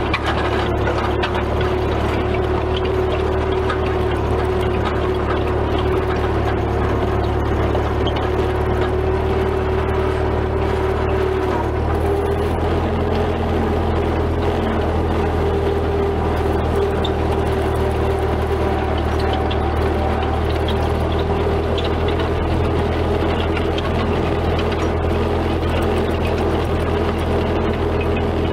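1944 Ford 2N tractor's four-cylinder flathead engine running steadily as the tractor drives, with a steady whine over the engine note. The engine note shifts slightly about twelve seconds in.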